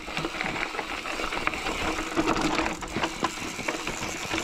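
Bicycle coasting, its rear freewheel hub ticking in a fast, steady buzz, with the bike rattling over rough ground.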